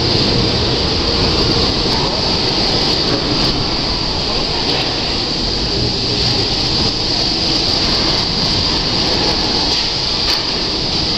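Steady machinery din of a car assembly plant's robotic production line: a continuous mechanical rumble with a constant high hiss over it.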